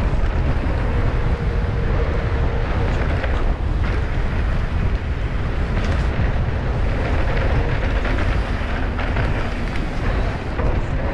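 Wind buffeting the microphone of a camera on a mountain bike riding a dry dirt trail, mixed with the steady low rumble of the tyres rolling over the ground.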